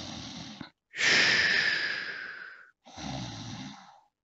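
A person imitating loud snoring: a long hissing 'shooo' breath out about a second in, then a rough, rasping snore breath in near the end.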